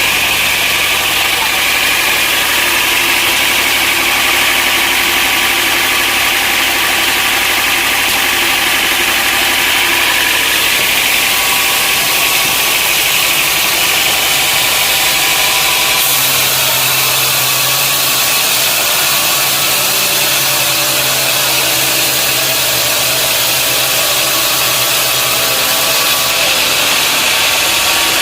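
Sawmill machinery running steadily: an engine or motor with a constant hum under a broad hiss. The sound changes abruptly about sixteen seconds in.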